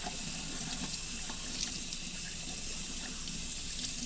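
Kitchen tap running steadily into a sink while vegetables are rinsed under it, with a few faint small knocks.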